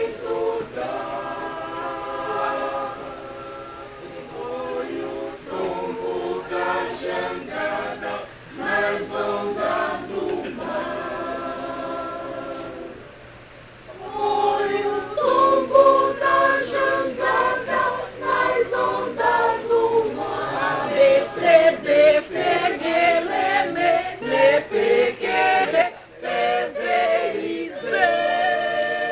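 A group of men and women singing together in chorus. The singing breaks off briefly about halfway through and comes back louder.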